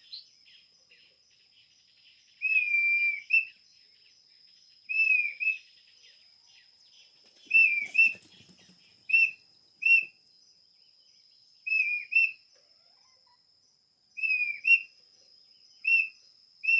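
Handmade bird-call whistle blown to imitate a quail (codorniz): about nine separate whistled calls, each a held high note ending in a quick upward flick, the first the longest.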